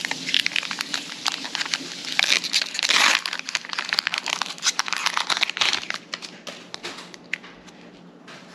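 Foil wrapper of a Pokémon Scarlet and Violet booster pack crinkling and tearing as it is handled and opened, a dense crackle that is loudest about three seconds in and dies down near the end.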